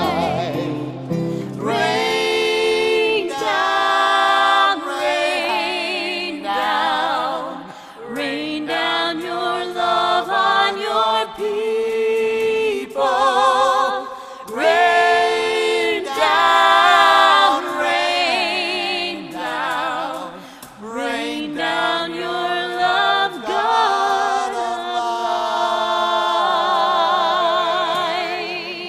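A woman sings a slow worship hymn with vibrato on long held notes, accompanied by keyboard and acoustic guitar. Near the end the song fades out on a final held note.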